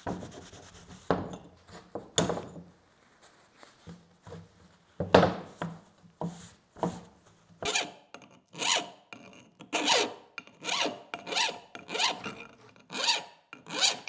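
A file rasping across the freshly quenched EN9 steel axe edge: a few irregular scrapes at first, then quick regular strokes about two to three a second from about halfway. It sounds like filing glass, the file skating off without cutting, which shows the steel is harder than the file.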